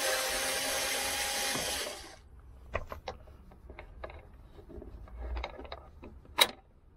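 A power drill-driver runs for about two seconds and stops, unscrewing a Lada Granta's door lock striker bolt. Then come scattered light clicks and knocks as the bolt and its plastic bushing are handled, with one sharp click near the end.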